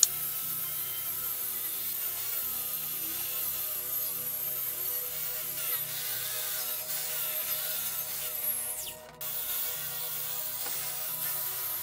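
Angle grinder running with a red abrasive disc, scrubbing rust off a steel angle bar: a steady high whine with rubbing noise, broken off for a moment about nine seconds in before it starts again. A short sharp click right at the start.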